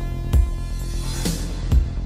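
Electronic music: a steady deep drone with two heavy bass hits about a second and a half apart.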